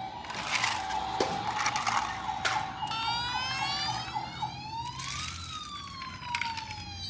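Emergency-vehicle siren: a steady tone for about three seconds, then a slow wail rising and falling once. Sharp clacks of small die-cast toy cars knocking together cut in a few times.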